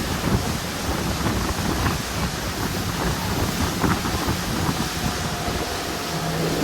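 Wind buffeting the microphone over rushing water and the steady drone of a fishing boat's engine as the boat runs at speed.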